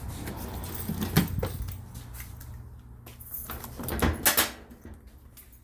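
Clunks, knocks and scraping as a top-load washer's back panel is handled and taken off. The loudest knocks come about a second in and just after four seconds in.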